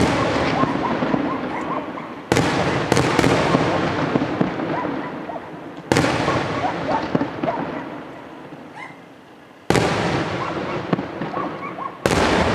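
Aerial firework shells bursting: four sharp bangs a few seconds apart, each one's sound dying away over the next few seconds before the next.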